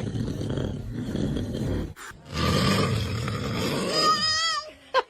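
A man snoring loudly: two long, rough snores with a short break about two seconds in. Near the end of the second snore comes a high, wavering whine.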